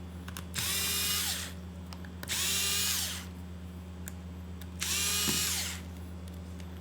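Small electric screwdriver backing out the display bezel screws in three short runs, each a whine that rises as it spins up and falls as it stops, over a steady low hum.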